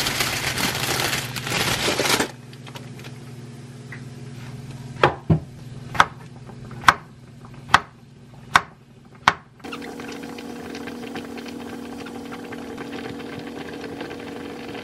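Plastic bag crinkling as king oyster mushrooms are pulled out of it. Then a knife chops down through a king oyster mushroom onto a wooden cutting board: seven sharp chops, each under a second apart. Near the end a steady low hum sets in.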